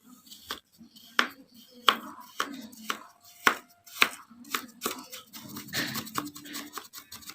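Kinetic sand being cut in a run of sharp strokes, about two a second, with a denser stretch of strokes near the end.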